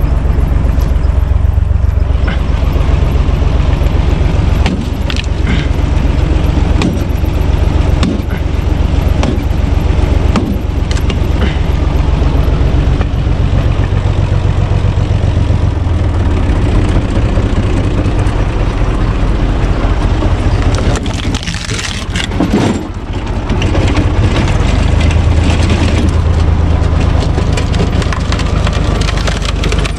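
Universal U445 DT tractor's diesel engine running steadily as it drives a tractor-mounted log splitter. Wood cracks and splits several times as logs are forced apart on the splitter.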